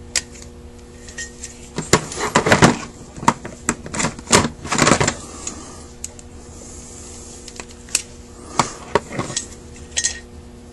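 Metal parts of a Carter WA-1 carburetor being handled and worked with a small hand tool: a quick run of clicks and clinks a couple of seconds in, then a few more knocks near the end.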